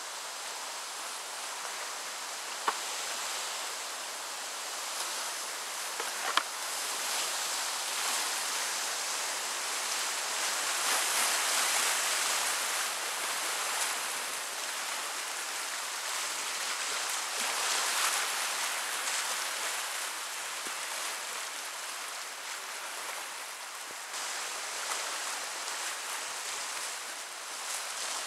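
Rushing whitewater of a river rapid, heard close up from a kayak running through it, growing louder midway. Two short sharp knocks a few seconds in.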